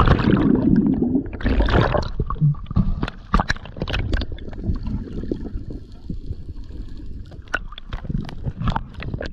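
Water heard from underwater: a loud rush of splashing and bubbles as the camera goes under, a second rush about two seconds in, then gurgling bubbles and scattered crackles and clicks as a spearfisherman fins at the surface.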